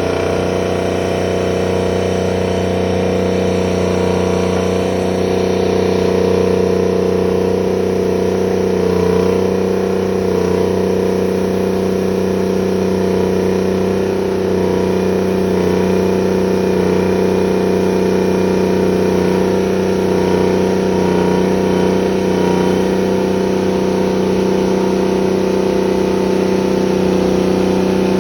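Terex 82-20 crawler bulldozer's diesel engine running steadily, a constant drone with little change in pitch or loudness.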